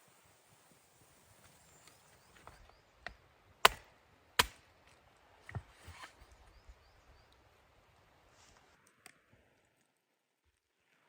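A few sharp cracks or knocks, the two loudest close together in the middle, with smaller ticks around them, then a sudden drop to near silence near the end.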